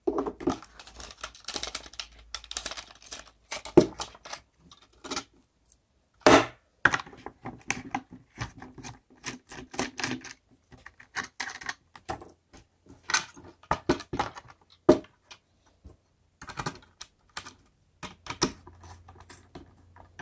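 Irregular light clicks and taps of small metal parts: series busbars and nuts being fitted onto the threaded terminal studs of a NESE 21700 battery module pack and turned down with a red-handled hand driver, with a couple of sharper knocks along the way.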